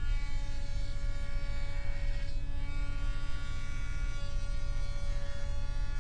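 Electric router running a straight bit through a dovetail template, cutting the sockets: a steady motor whine, its pitch shifting slightly about two seconds in as the bit takes the wood.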